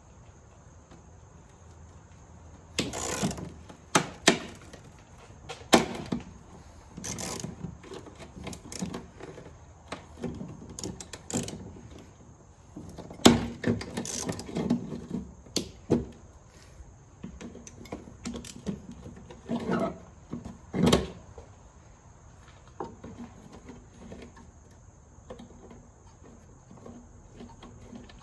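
Irregular knocks, clunks and clicks of hand tools and car parts being handled during repair work, some single and some in short clusters.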